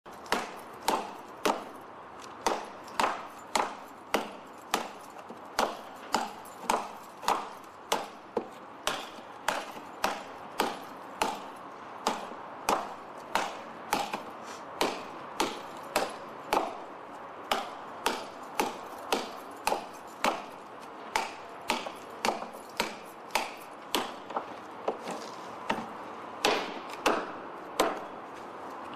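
Tamahagane-steel hunting knife chopping into a green bamboo pole: a steady run of sharp strikes, about two a second, each one cutting and splintering the bamboo.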